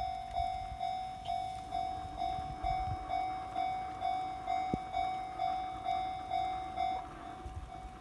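Electronic warning bell of a Japanese railway level crossing, ringing evenly at about two dings a second. It keeps sounding as the barrier rises after a train has cleared, then falls much fainter about seven seconds in.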